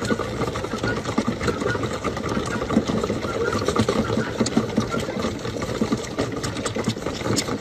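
A crowd of goat kids sucking and slurping on the teats of a multi-bottle feeder: a rapid, irregular clatter of sucking and smacking sounds.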